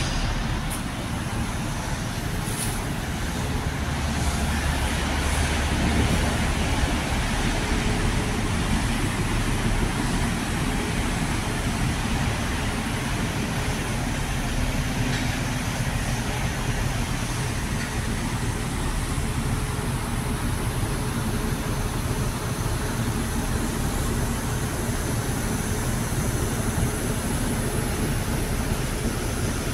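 Steady outdoor rumble and hiss with no distinct events, slightly louder a few seconds in.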